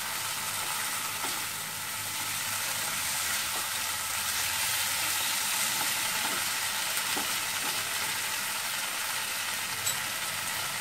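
Potato pieces in a spice paste frying in oil in a nonstick kadai: a steady sizzle, with a silicone spatula stirring through them. A light tap sounds near the end.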